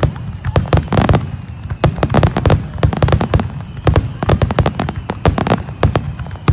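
Fireworks display: aerial shells bursting in quick irregular succession, several loud bangs a second, some in rapid clusters, over a low rumbling echo.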